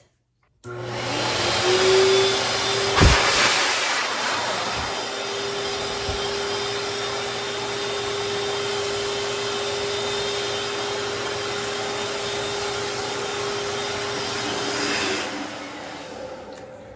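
Professional pet hair dryer (grooming blower) switched on: its motor spins up with a rising whine, then blows steadily with a loud rush of air and a steady hum. A sharp knock comes about three seconds in, and the dryer is switched off about fifteen seconds in and winds down.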